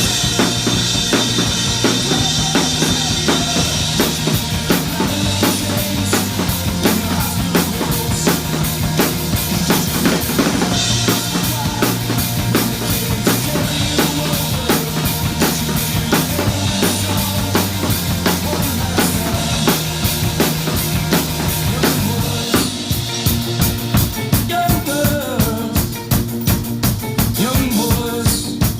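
Drum kit played along to a backing recording of a fast melodic punk rock song, with snare and bass-drum hits driving a steady beat over the record's bass and guitars. Crash cymbals wash over the first few seconds and again about eleven seconds in.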